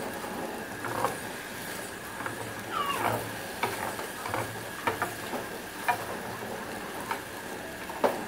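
Wooden spoon scraping and knocking against a ridged grill pan as chicken pieces are stirred and turned: a string of short scrapes and taps about a second apart, one with a brief squeak about three seconds in.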